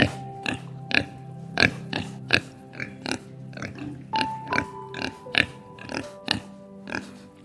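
Background music with held notes, over a run of short, sharp animal calls about two a second, spaced a little unevenly.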